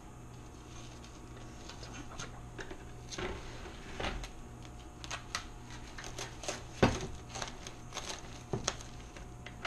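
Plastic cling wrap being pulled from its box and pressed crinkling around the rim of a metal mixing bowl: a run of small irregular crackles and taps, the loudest about seven seconds in.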